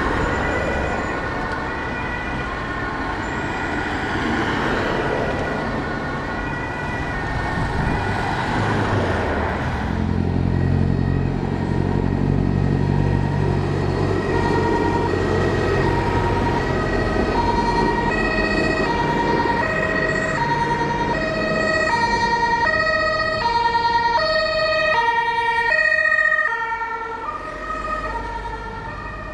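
German two-tone emergency vehicle sirens (Martinshorn) alternating between two pitches as vehicles drive past on an emergency run. A heavy vehicle's engine and tyre noise swells about ten seconds in. The sirens are loudest shortly before the end, then fall away.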